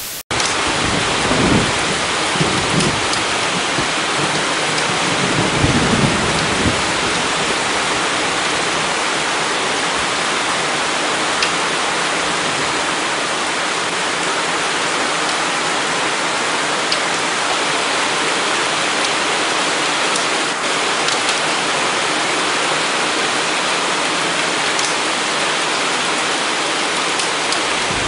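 Heavy hurricane rain and wind making a loud, steady hiss, with low rumbling gusts buffeting the microphone in the first few seconds.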